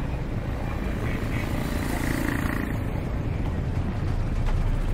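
Street traffic: cars driving past in a steady mix of engine and tyre noise.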